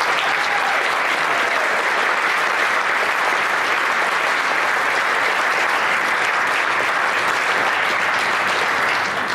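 Congregation applauding: dense, steady clapping from a large crowd that dies away near the end.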